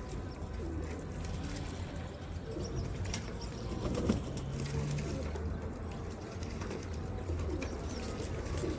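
Iranian domestic pigeons cooing, a series of low, rolling coos over a steady low hum.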